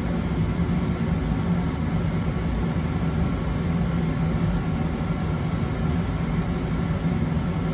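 2023 York TM9E single-stage condensing gas furnace running with burners lit and blower on: a steady, even rush of air over a low steady hum. The burner-compartment panel is off, so it is louder than with the cover on.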